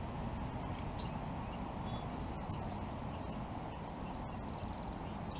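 Small birds chirping and trilling in short high calls over a steady low rushing noise from the open-air microphone.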